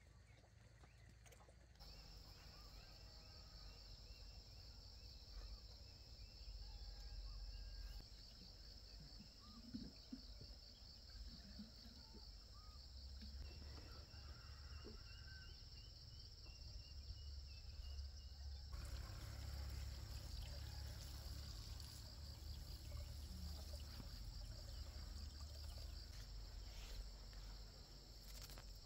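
Faint outdoor ambience of insects, crickets or cicadas, trilling in a steady high, rapidly pulsing buzz, over a low rumble.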